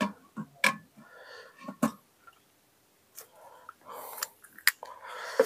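Spinning fishing reel being handled as its spool is swapped: about half a dozen sharp plastic-and-metal clicks at irregular intervals, with light rustling between them.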